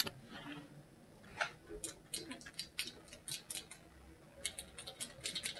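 Freeze-dried peach crisps snapping and crackling as they are broken between the fingers: a light, irregular run of dry clicks coming in small clusters.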